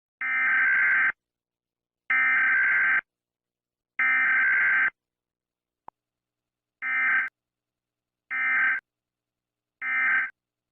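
Emergency Alert System digital data bursts (SAME header tones): three bursts of about a second each, two seconds apart, then three shorter bursts, the end-of-message code.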